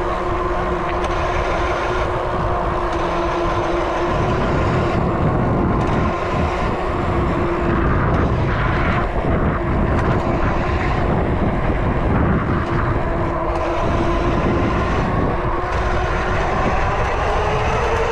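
Riding noise from a fat-tire bike in motion: a steady hum whose pitch rises near the end as speed picks up, over a low rumble of wind on the microphone.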